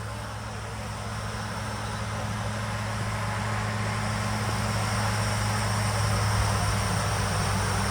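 Borewell drilling rig running steadily: a low engine drone under a broad hiss, slowly growing louder.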